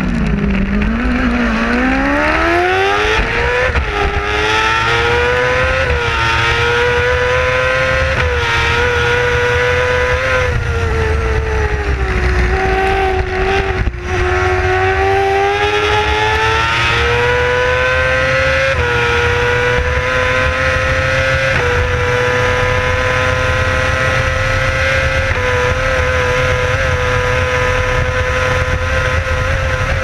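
Racing sidecar outfit's engine at full race pace. Its note drops sharply at the start under braking, then climbs through a run of upshifts, cuts briefly near the middle, and holds high revs steady for the last third. Wind rushes across the microphone throughout.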